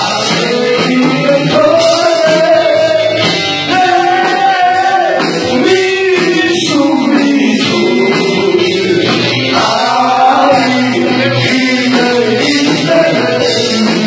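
A man singing into a handheld microphone, holding long notes that slide up and down in pitch.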